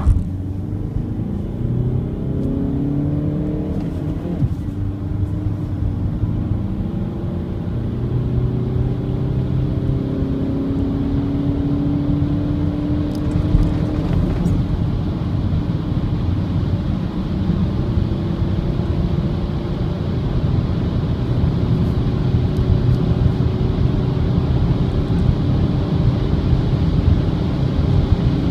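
Inside the cabin, the 2016 Skoda Octavia III's 1.6 TDI four-cylinder turbodiesel pulls hard through the gears of its 5-speed manual, its note rising in pitch. It drops back at upshifts near the start, about four seconds in and about fourteen seconds in, then climbs slowly in fourth as road and wind noise build.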